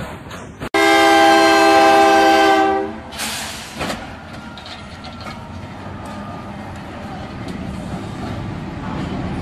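Diesel locomotive's air horn sounding one loud, steady blast of about two seconds, starting about a second in. A brief noisy burst follows, then the locomotive rumbles through the level crossing, growing louder toward the end.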